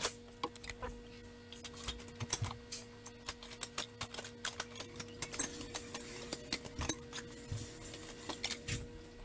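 Irregular light metallic clicks and clinks of a wrench working the brake-line fittings on a brake module, over a steady low hum.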